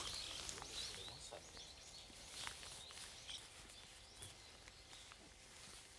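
Faint outdoor ambience: a low steady hiss with a few short, faint bird chirps and small clicks, easing down over the first couple of seconds.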